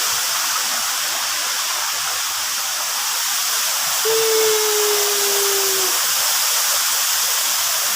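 Waterfall rushing steadily, an even hiss of falling water. Near the middle a single held tone sounds for about two seconds, sinking slightly in pitch.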